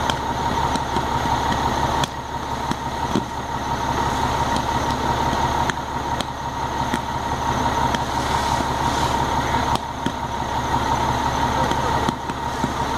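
Steady engine and pump noise of fire apparatus with a constant high whine, broken several times by sudden cracks as downed live power lines arc.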